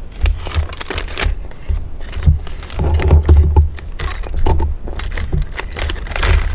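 Handling noise: small hard accessories clinking and scraping, with rustling and dull bumps against the table.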